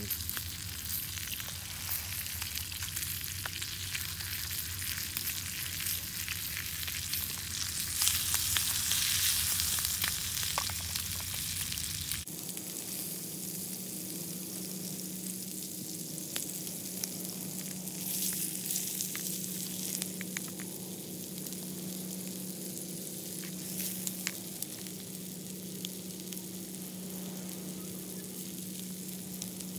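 Needlefish fillets sizzling as they fry in butter in a small pan over a solid-fuel stove, a steady hiss that grows louder for a few seconds about eight seconds in.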